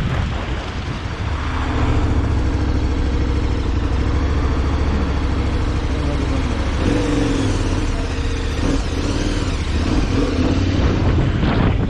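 A road vehicle's engine running on the move, its pitch shifting up and down in the second half, under heavy wind noise on the microphone.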